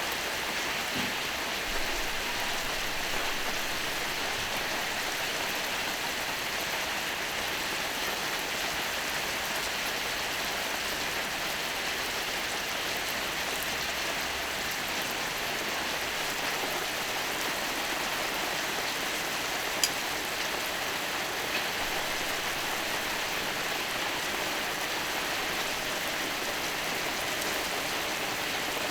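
Beef skirt steak (harami) sizzling steadily on a hot iron griddle, with one sharp click about two-thirds of the way through.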